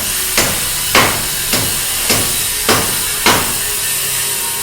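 Hammer blows struck at an even pace, about two a second, six in a row and then stopping, over a steady hiss.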